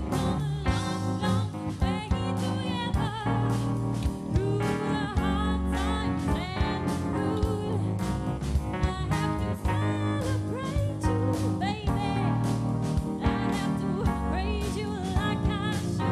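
Live band music: a woman singing with vibrato over electric keyboard, bass guitar and drum kit.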